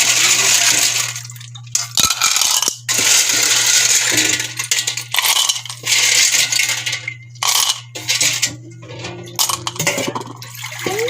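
Sea snail shells being washed by hand in water, clattering and clinking against each other and the basin with splashing, in surges broken by short pauses, over a steady low hum.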